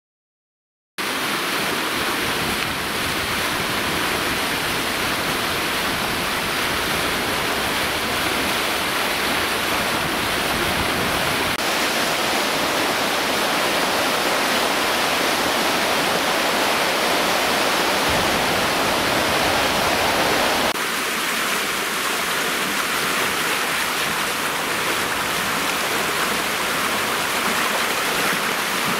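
A river in spate after heavy overnight rain, fast muddy water rushing steadily over its bed. The rushing starts about a second in and shifts slightly in tone, with less low rumble, about two-thirds of the way through.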